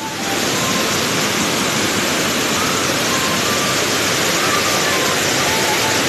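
Waterfall's white water rushing over rocks: a steady, even rush of falling water.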